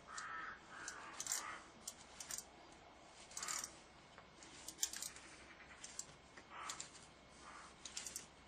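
Faint, irregular light clicks and clinks of small metal parts being handled.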